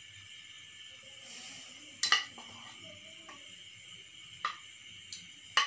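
Marinated beef strips cooking on a wire grill over charcoal: a faint steady sizzle broken by several sharp clicks and pops, the loudest about two seconds in.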